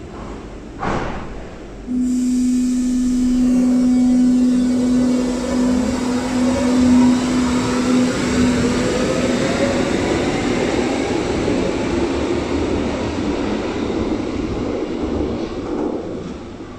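Berlin U-Bahn H01 electric train pulling out of an underground station. There is a short burst of noise about a second in, then the train starts suddenly with a steady hum. A rising whine follows as it picks up speed, over wheel and rail rumble, and it fades near the end as it leaves.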